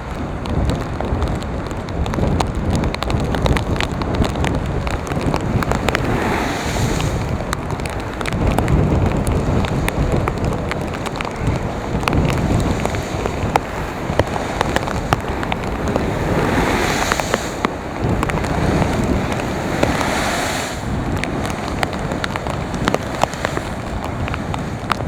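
Storm wind buffeting the microphone over steady surf, with waves crashing against a seawall and throwing spray three times, about six, sixteen and twenty seconds in. Scattered sharp ticks of spray or rain run throughout.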